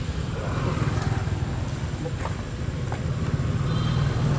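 Low, steady hum of a motor engine running.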